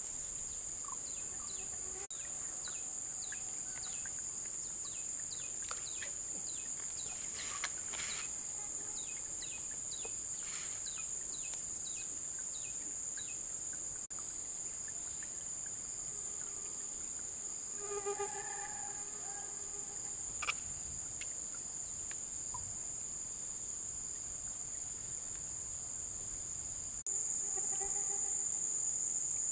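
Insects shrilling in a steady high-pitched drone, growing louder near the end. Over it a bird gives a run of short, quick falling chirps in the first half.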